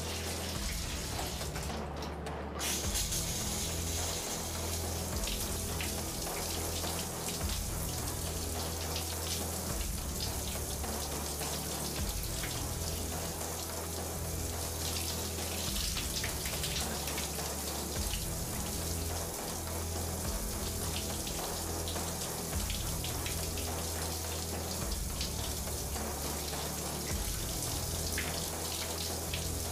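Background film music: low held bass notes changing every second or two, with a steady hiss like running water or rain setting in about three seconds in.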